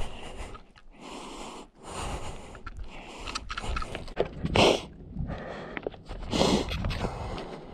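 Heavy, extra-loud breathing of a person exerting hard, picked up right at the mouth by a GoPro held in the teeth. The breaths come every second or two, with the strongest exhales about halfway through and a couple of seconds later.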